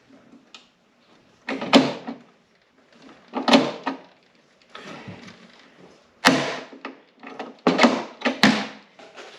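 Hand pop-rivet tool worked in about six sharp clacking strokes, setting a rivet.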